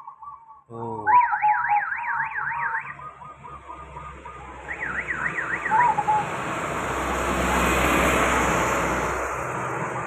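An electronic siren-like tone warbling up and down about three times a second, in two short bursts. Then a motor vehicle passes on the road, its noise swelling to a peak about eight seconds in and easing off.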